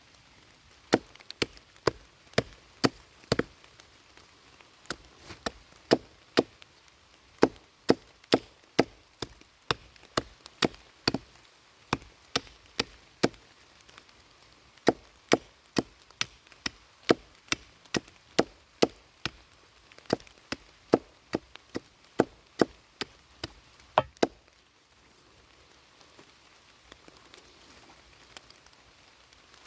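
Axe chopping wood: a long run of sharp, hard blows, about two a second with short pauses, that stops a few seconds before the end.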